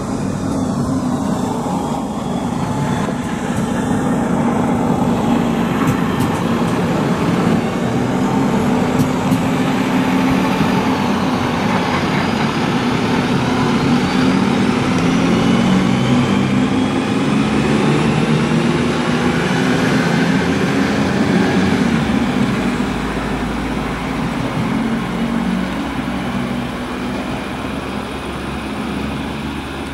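Single diesel railcar pulling out and accelerating past, engine running with rising whines as it picks up speed, loudest as it passes about halfway through, then fading as it draws away down the track.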